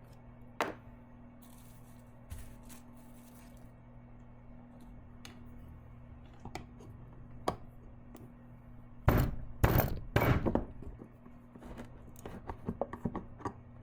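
Resin bottle and measuring cups being handled and set down on a workbench while resin and hardener are measured out: scattered light clicks, a cluster of three louder knocks about nine seconds in, and a run of quick ticks near the end, over a steady low hum.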